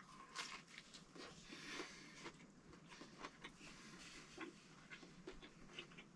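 Near silence: a quiet room with faint scattered small ticks and soft rustles.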